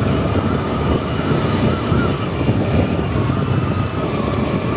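A Honda Activa 6G scooter being ridden at about 40 km/h: a steady rush of wind and road noise, with the 110 cc single-cylinder engine running underneath and a faint steady whine.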